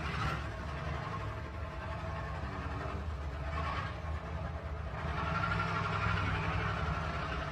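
Heavy diesel truck engine running steadily while the truck wades through deep water. A rushing noise over it grows louder about five seconds in.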